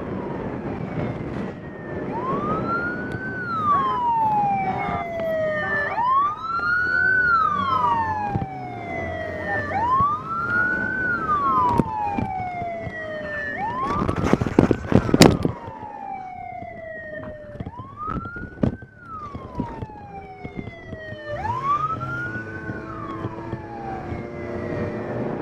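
Police siren wailing, each sweep rising then falling over about four seconds, over and over. A loud clattering burst comes about halfway through.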